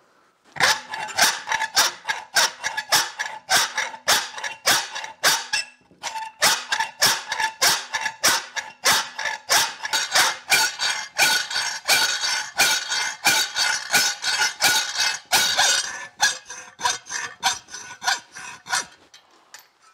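Hacksaw with a brand-new Lenox blade cutting through a metal plate held in a bench vise. It makes quick, steady rasping strokes that stop about a second before the end.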